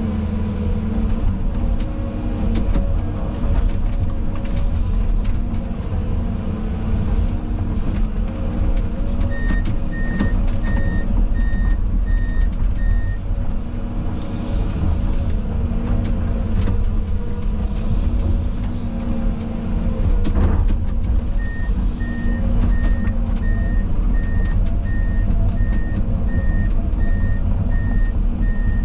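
Excavator engine and hydraulics running under load, heard from inside the cab. A steady beeping alarm, about two beeps a second, sounds for a few seconds near the middle and again from about two-thirds of the way in, and a single knock comes shortly before the second run of beeps.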